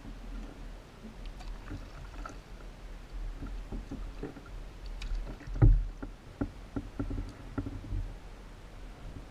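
Kayak paddling: the paddle blades dipping into the water and knocking against the kayak, with scattered clicks and knocks and one heavy thump a little past halfway.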